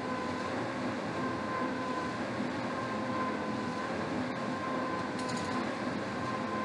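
Air rowing machine's fan flywheel whirring under steady rowing: a continuous whoosh with a faint hum that comes and goes in a regular rhythm with the strokes. A small click about four seconds in and a brief rattle about five seconds in.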